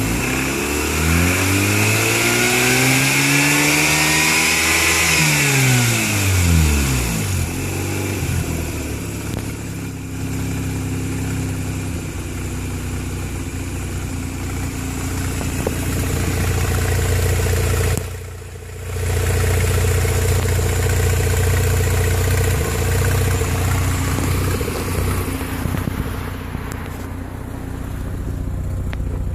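Turbocharged Mazda RX-8's rotary engine revved once, climbing and falling back over about six seconds, then settling into a rough, uneven idle. The sound dips briefly about two-thirds of the way through.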